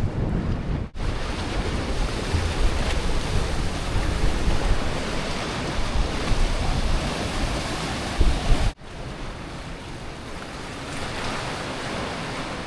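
Ocean waves washing against the coastal rocks, with wind buffeting the microphone. The sound breaks off abruptly twice, about a second in and again near nine seconds, and the last stretch is quieter.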